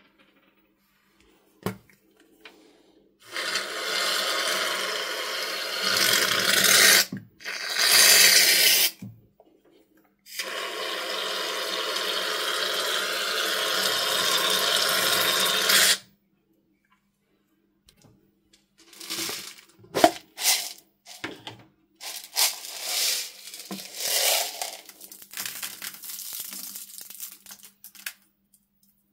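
Aerosol foam can spraying foam in three long, steady hisses, the last about six seconds long. Afterwards, hands squish and press the foam into bead-filled slime, with irregular wet squelches and clicks of beads.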